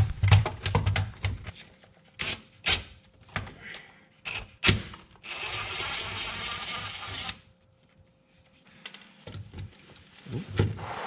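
Hand tools working on transmission pan bolts under a car: scattered metal clicks and knocks, then a steady rattling noise lasting about two seconds a little past the middle.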